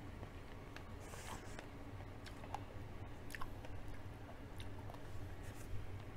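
A person chewing food close to the microphone, with small wet clicks and smacks of the mouth over a low steady hum.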